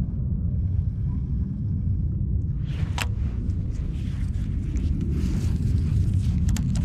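Steady low rumble of wind buffeting the microphone. About three seconds in there is one sharp click, followed by scratchy rustling and scattered clicks.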